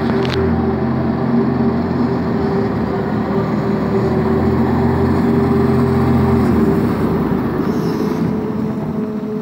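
Zamboni 552 battery-electric ice resurfacer driving over the ice: a steady machine hum and whine over a low rumble, and the rumble drops away about two-thirds of the way through.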